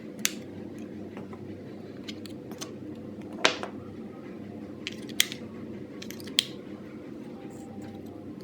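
About ten sharp clicks, irregularly spaced, the loudest about three and a half seconds in, over a steady low hum.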